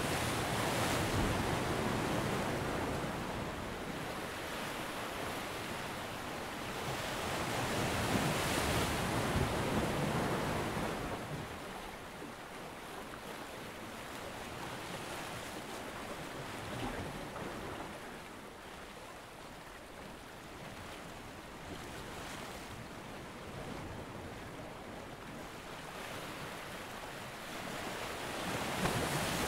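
Small waves washing against a rock seawall, with wind buffeting the microphone; the wind swells twice in the first ten seconds and again near the end.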